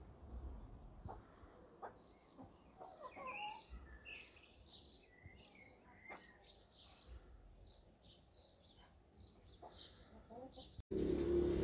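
Faint chirping and twittering of birds, many short high calls one after another with a few lower calls among them. Near the end the sound cuts abruptly to a louder steady hum with a rushing noise.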